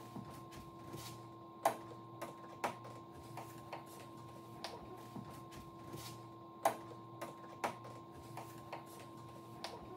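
Plastic snap clips of a Samsung UN40EH5000 TV's outer frame being pried loose with a flat tool: an irregular string of small sharp clicks, with a few louder snaps. A faint steady hum lies underneath.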